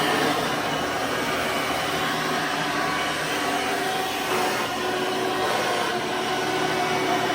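Hoover Soft & Light Supreme upright vacuum with a 12-amp motor and 20-blade fan running steadily at full power, a loud, even rush of air with a few faint steady tones in it.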